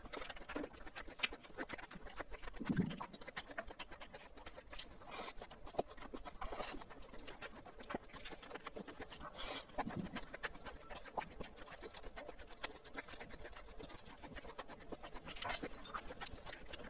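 Close-miked eating sounds: chewing and wet mouth noises over spicy squid rice, with many small scattered clicks as a spoon works in the takeout bowl.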